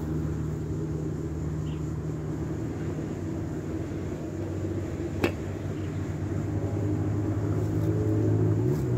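A motor engine humming steadily, its pitch shifting and growing louder near the end, with one sharp metallic clink about five seconds in.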